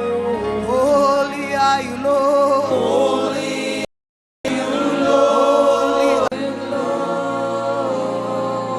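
Slow worship song: voices singing long, gliding notes over sustained music. The sound cuts out completely for about half a second around four seconds in.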